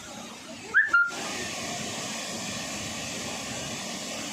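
Steady rushing of a waterfall, which steps up a little in level about a second in, just after two short, shrill whistle notes.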